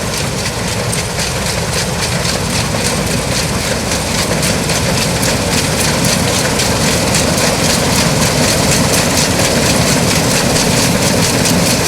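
New Holland CX8090 combine harvester on tracks running under load, a steady heavy engine rumble with a fast, regular mechanical clatter over it.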